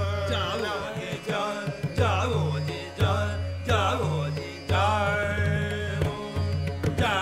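Male dhrupad singing in raga Puriya Dhanashree, the voice gliding and ornamenting between notes over a steady tanpura drone, with deep pakhawaj strokes at uneven intervals.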